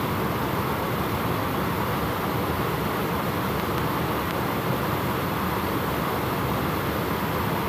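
Steady rush of stream water spilling over a small weir, an even, unbroken noise.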